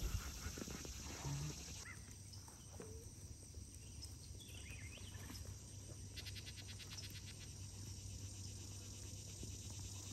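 Summer outdoor ambience with insects calling: a rapid, evenly ticking insect trill for a second or so about six seconds in, and a few faint short chirps.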